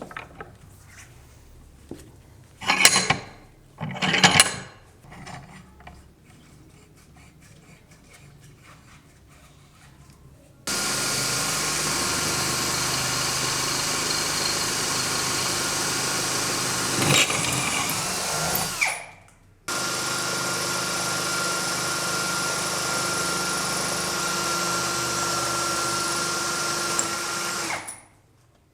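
A few knocks of handling, then a small handheld power tool runs steadily for about eight seconds, stops for a moment and runs again for about eight seconds.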